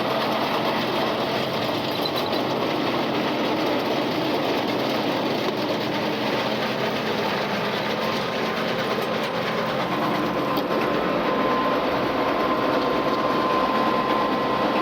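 Tractor running with a Krone KR 130 round baler working behind it: a steady, dense mechanical clatter. A faint steady whine joins about two-thirds of the way in.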